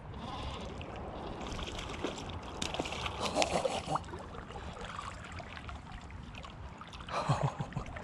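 Running creek water and splashing while a hooked trout is played on a spinning rod, with scattered clicks and rubbing from the rod and reel.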